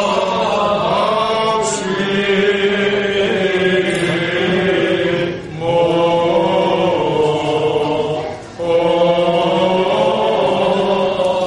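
Greek Orthodox Byzantine chant: a slow, melismatic sung line held over a steady low drone note, with two short breaks for breath around the middle.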